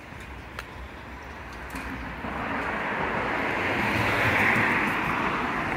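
A car driving past on the street, its tyre and engine noise swelling to a peak a little past the middle, then easing off.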